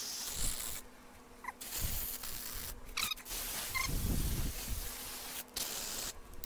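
Aerosol brake cleaner spraying into a motorcycle's rear brake caliper and bleeder port, flushing it out: a short hiss at the start, then a longer hiss from about two seconds in that stops suddenly about a second before the end.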